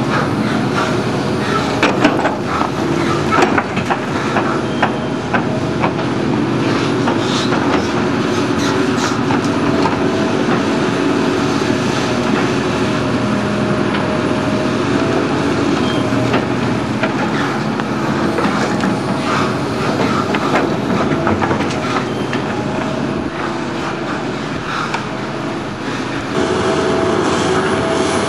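Tracked hydraulic excavators running, a steady engine note with a whine over it, with frequent clanks and rattles as the buckets dig rubbish and drop it into steel open wagons. The noise gets a little louder near the end.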